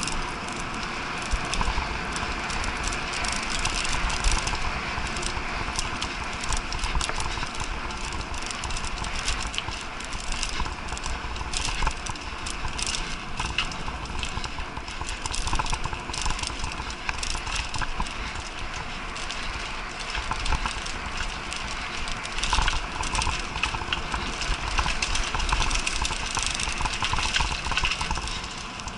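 Mountain bike ridden fast along a dirt forest trail. The tyres roll with a steady rattle of small clicks and knocks over the bumps, and wind rumbles on the microphone.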